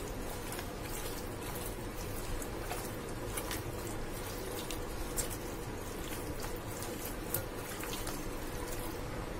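Wet squelching of raw chicken pieces being mixed by hand into a yogurt and spice marinade in a glass bowl, with a few faint clicks.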